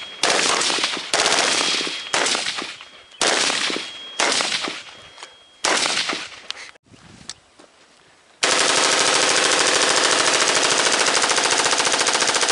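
Suppressed full-auto M16 with a 10.5-inch LWRC M6A2 upper and AAC 762-SDN-6 silencer, firing several short bursts, then a single shot, then one long unbroken burst of about four seconds from a 100-round drum magazine.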